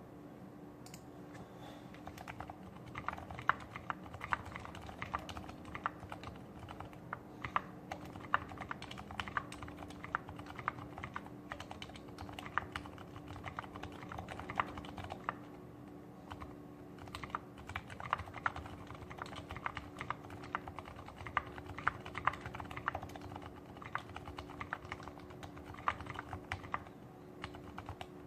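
Mechanical keyboard with lubed 65g Zilents silent tactile switches and GMK keycaps being typed on steadily, a run of soft, muted key clicks and thocks.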